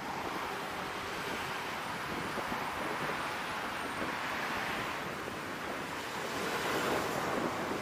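Steady rushing noise of road traffic on a busy multi-lane city road, swelling louder as vehicles pass, most of all near the end.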